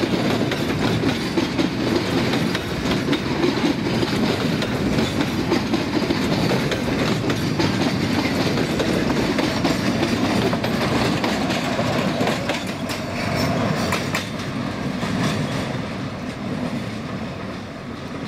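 Freight train's container flat wagons rolling past close by: a steady rumble of steel wheels on rail with rapid clickety-clack over the rail joints, fading over the last few seconds.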